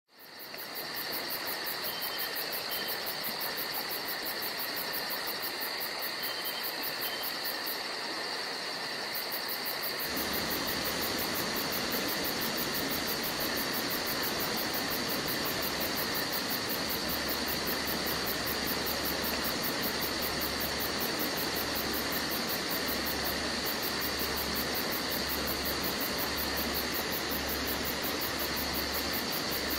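Steady hiss with faint, steady high-pitched tones and no distinct events. A low hum comes in about ten seconds in and later pulses on and off roughly once a second.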